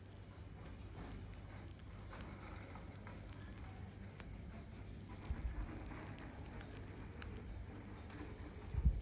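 Soft crackling and squishing of a soft material, slime or soap, being pressed and crushed between the palms, with dull thumps about halfway through and near the end.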